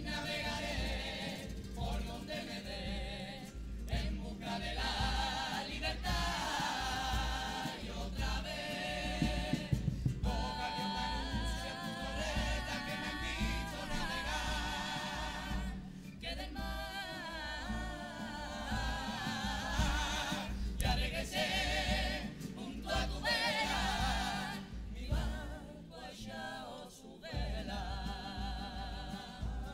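Junior comparsa chorus of young voices singing together with vibrato in short phrases, over a steady low beat.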